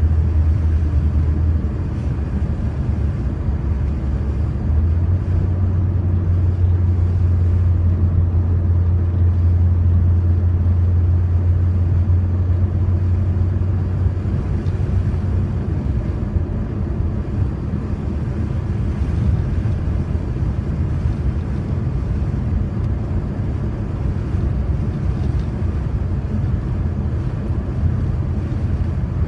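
Car cabin noise while driving: a steady low engine and tyre drone with road noise. The low drone eases off about halfway through.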